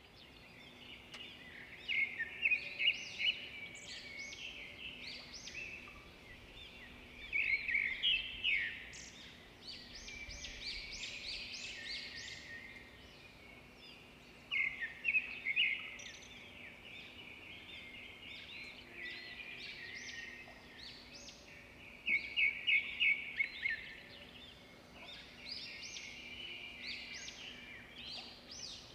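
Songbirds chirping and calling, many voices overlapping, with louder bursts of rapid repeated chirps every several seconds. A faint steady hum sits underneath.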